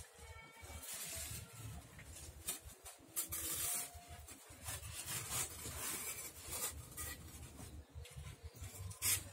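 Styrofoam sheets squeaking and scraping against each other and the wooden tank wall as they are pushed into place, with scattered light knocks.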